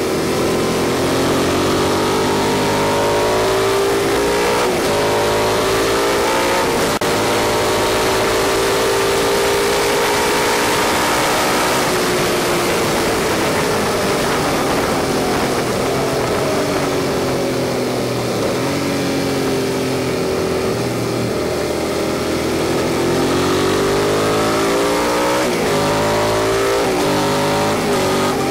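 Suzuki SV650's V-twin engine pulling hard at track speed, recorded onboard over constant wind rush. Its note climbs early on, sinks slowly through the middle, and climbs again towards the end, with a few quick dips in pitch along the way.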